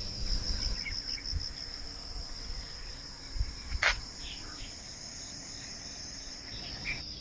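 Insects chirring in a steady, high-pitched trill that pulses during the first second, with one sharp click about four seconds in.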